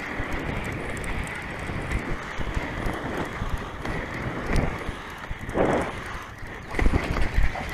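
Wind buffeting the action-camera microphone over the rolling rumble of inline skate wheels on asphalt, with a few thumps near the end.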